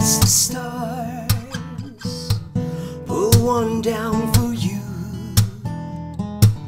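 Acoustic guitar strummed with sharp percussive string hits on the beat, and a man singing long, sliding vocal lines over it.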